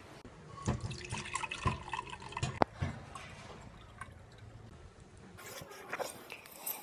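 Liquid dripping and sloshing with scattered light clicks and knocks, one sharp click about two and a half seconds in.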